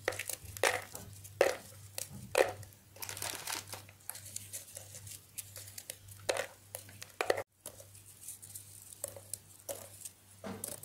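Digestive biscuits being snapped by hand into small pieces: a run of irregular dry cracks and crunches, some close together, others a few seconds apart.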